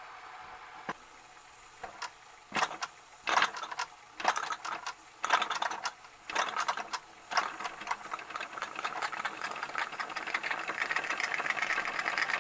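Toy stationary steam engine starting up on about 3 pounds of steam pressure: a few separate puffs of exhaust steam at first, then it picks up speed to a fast, even chuffing that carries on.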